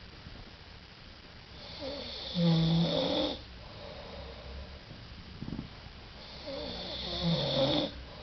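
A man snoring in his sleep: two long snores about four and a half seconds apart, each growing louder toward its end and then stopping abruptly.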